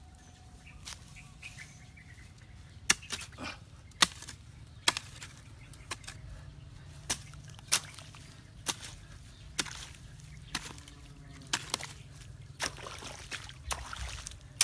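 Water splashing and sloshing in repeated sharp splashes, about one a second, as water is poured into a muddy channel dug in soil.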